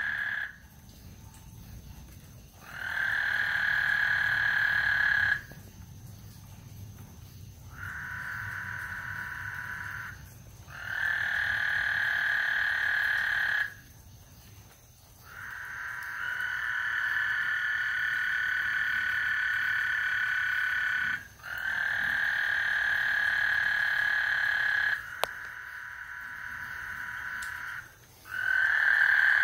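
Frogs calling in a chorus at night: long, steady calls of two to five seconds each, following one another with short pauses, several animals taking turns.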